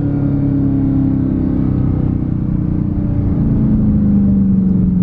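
Dodge SRT muscle car's V8 engine heard from inside the cabin while driving, a steady drone whose pitch slowly falls as the revs ease off.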